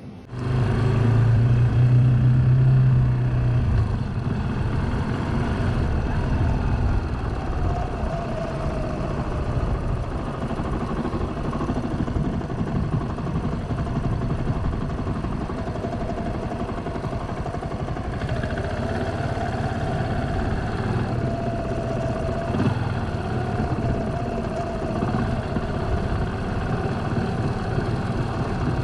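Suzuki GrassTracker BigBoy's single-cylinder engine running. It comes in suddenly and is loudest for the first few seconds with a deep hum, then runs on steadily.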